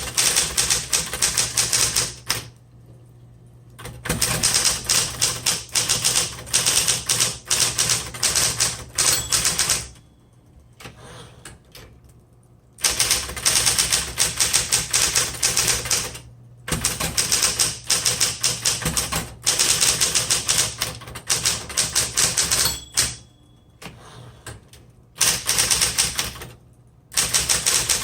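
Smith Corona Electra 120 electric typewriter being typed on in fast runs of key strikes, broken by a few short pauses, with the machine's motor humming steadily underneath.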